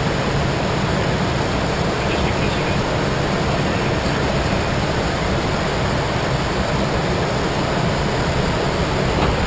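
Steady rushing noise inside a jet's cockpit in flight: airflow and engine noise at a constant level.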